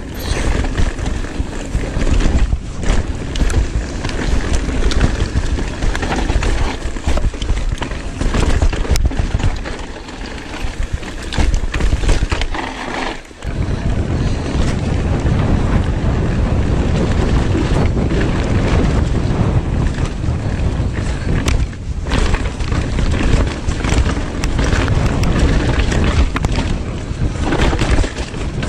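Wind buffeting the microphone and tyres rolling over leaf-covered dirt on a fast downhill e-mountain-bike descent, with constant clicks and rattles from the bike over the rough ground. The noise drops out briefly about halfway through, then carries on.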